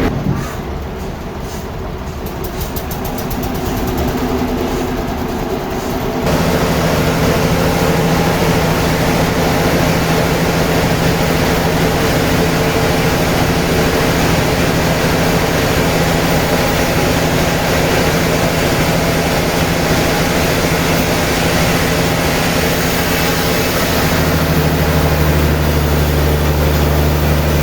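Sawmill machinery running with a steady mechanical drone and rushing noise. It gets louder about six seconds in, and its low hum shifts near the end.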